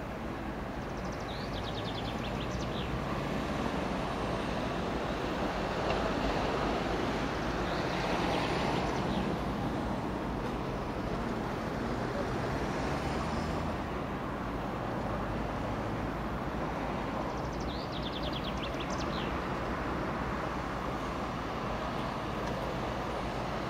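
Diesel locomotives running at a railway station: a steady low rumble under a broad hiss that swells for several seconds in the middle. Short runs of high chirping notes come twice, near the start and again near the end.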